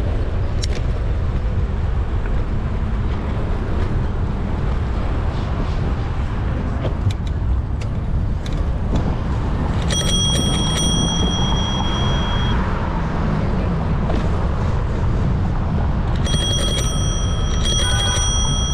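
Steady wind and traffic noise from a bicycle ride in city streets. A bicycle bell is rung in a quick flurry of strikes about ten seconds in and again near the end, each time ringing on for a couple of seconds.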